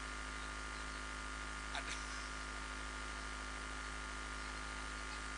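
Steady electrical mains hum with a faint buzz of many steady tones, and a faint short sound about two seconds in.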